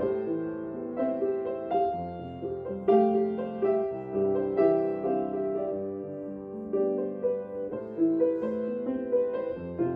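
Background music: a slow piano piece, single notes and chords struck and left to ring.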